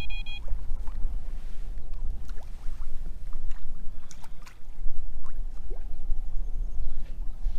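Wind buffeting the microphone as a steady low rumble, with small waves lapping and slapping against a floating pontoon. A short electronic beep from a carp-style bite alarm sounds right at the start.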